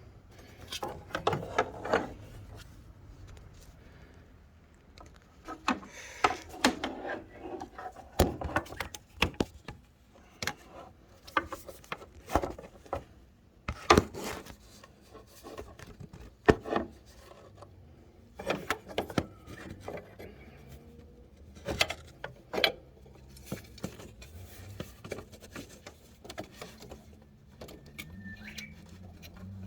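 Irregular metallic clinks, knocks and rubbing of hand tools and parts being handled during belt replacement work, with the engine not running.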